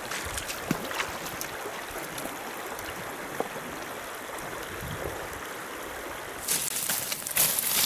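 Water trickling and flowing steadily, with a few faint clicks and a louder rush of noise near the end.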